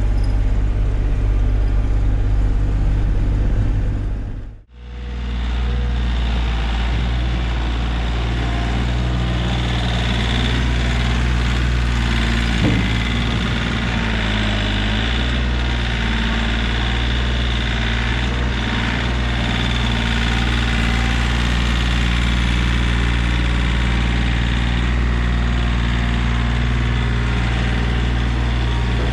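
Kioti CK3510 compact tractor's three-cylinder diesel engine running steadily while its front loader works, heard first from inside the cab. After a brief cut about five seconds in, the same engine is heard from outside.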